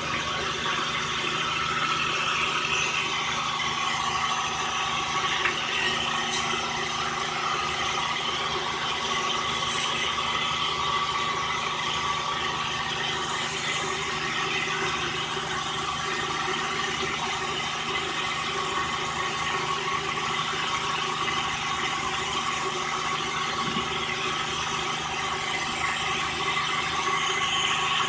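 Sawmill machinery running steadily with a high-pitched whine over a mechanical drone.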